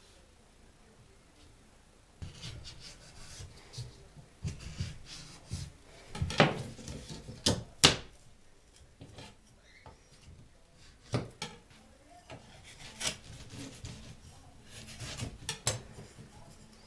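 Drywall (gypsum board) being cut by hand into small bricks: irregular scraping and rubbing strokes starting about two seconds in, with several sharp cracks among them.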